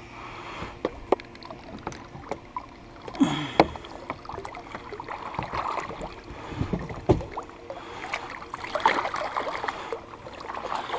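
A large fish being lowered over the side of a boat and released: scattered knocks and bumps against the hull with water disturbed around the boat's side.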